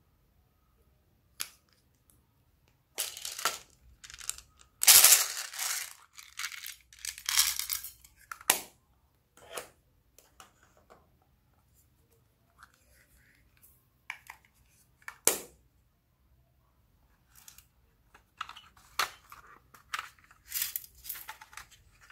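Handling noises of small items over a bowl of slime: irregular rustling bursts and short clicks, with one sharp knock about fifteen seconds in.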